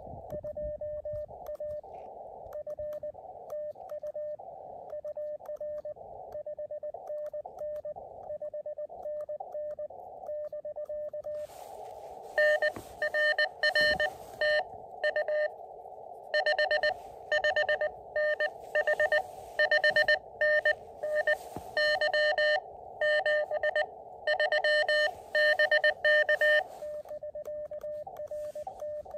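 Morse code (CW) tones from an Elecraft KX2 QRP transceiver, a single steady note keyed on and off over narrow receiver hiss. For the first eleven seconds or so the note is quieter. From about twelve seconds a much louder, buzzier keyed note runs for about fifteen seconds, and near the end the quieter note returns.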